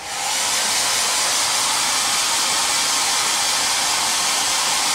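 Handheld hair dryer switching on and running steadily, blowing over freshly rubbed-in leather dye to dry it into the leather.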